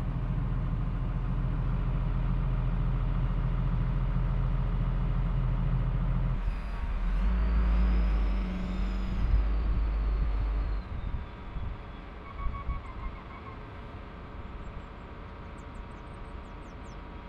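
Diesel engine of a wheel loader running steadily. From about six to ten seconds in it works harder and louder, with a high whine that rises and falls. It then settles back to a quieter idle. A few short beeps sound about twelve seconds in.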